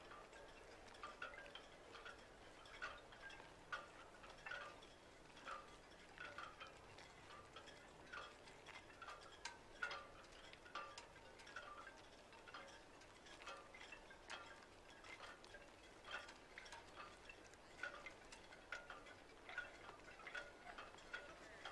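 Faint background music of soft, chime-like plucked notes, short and irregular, a few each second.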